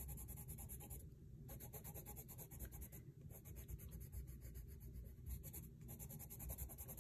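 Faint scratching of a colored pencil on paper in quick back-and-forth hatching strokes, layering shading to darken part of a drawn leaf. The strokes pause briefly twice, about a second in and again about three seconds in.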